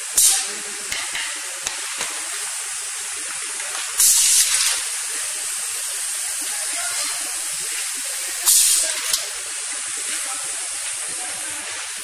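Pneumatic pick-and-place robot's solenoid valves venting compressed air in three short, loud hissing blasts about four seconds apart, as the air cylinders move the arm and gripper, over a steady hiss.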